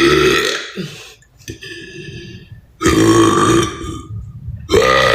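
A woman's deliberate, loud burps: one trails off just after the start, another comes about three seconds in, and a third begins near the end, each a drawn-out belch lasting about a second.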